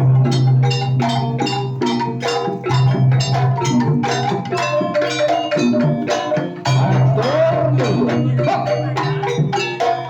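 Gamelan dance music: struck metal keyed percussion and drums playing an even beat of notes over a sustained low tone, with a brief sliding pitch a little past the middle.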